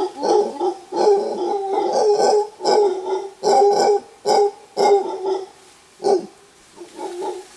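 Mantled howler monkey roaring: a rapid run of short, pulsed howls for about five seconds, then a few weaker calls trailing off near the end. It is a male's warning roar.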